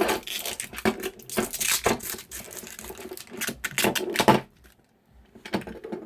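Plastic wrapping crinkling and tearing as it is pulled off a new belt, a dense run of crackles that stops about four seconds in, then a short crinkle near the end.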